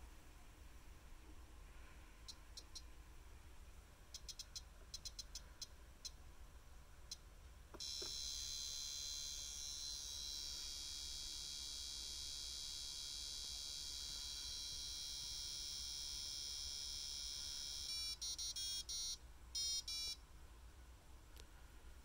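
Buzzer on a DIY ATtiny841 controller in a toy IKEA DUKTIG microwave: a few faint clicks as the rotary knob sets the timer, then a steady low buzz for about ten seconds that imitates the microwave running during the countdown, then a short beeping melody about two seconds long as the countdown ends.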